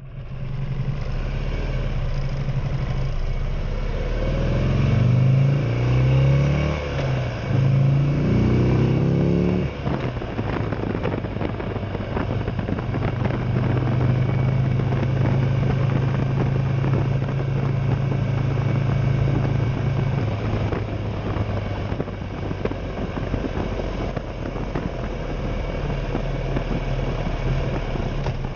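Buell motorcycle engine pulling away through the gears: a few seconds in, the revs climb and drop back three times, then it settles into a steady cruising note that eases a little lower about two-thirds of the way through.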